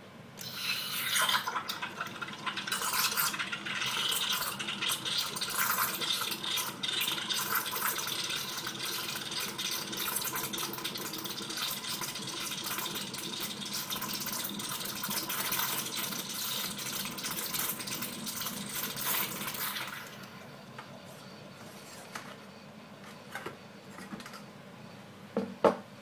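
Cookworks espresso machine's steam wand frothing milk in a mug: a loud hiss with gurgling and crackling that starts about half a second in and cuts off about 20 seconds in. A sharp knock follows near the end.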